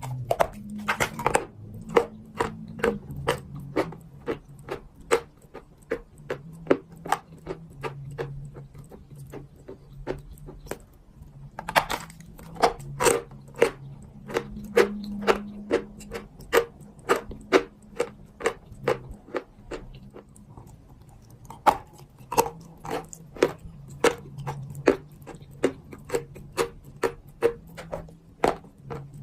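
Soft clay crunching in a long series of sharp, separate crunches, about one or two a second, like bites into a firm, brittle lump. A faint low hum runs underneath.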